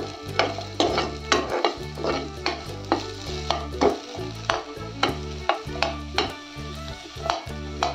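Steel spoon stirring chunks of onion in a nonstick pan, clinking and scraping against the pan about two to three times a second, over the sizzle of the onion frying in oil.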